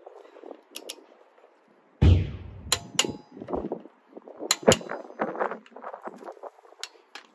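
Click-type torque wrench re-checking wheel bolts: the socket clanks onto the bolts and the wrench gives several sharp metallic clicks as it reaches its set torque, the loudest a little past halfway. There is a heavy knock about two seconds in.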